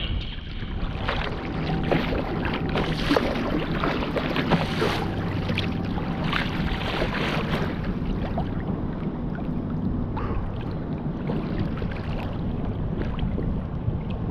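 Wind buffeting the microphone over choppy lake water, with waves slapping and splashing against a kayak's hull, the splashes busiest in the first half.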